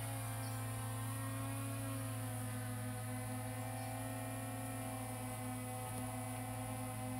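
Quadcopter camera drone's propellers and motors humming steadily, several tones together that drift slightly in pitch as it manoeuvres.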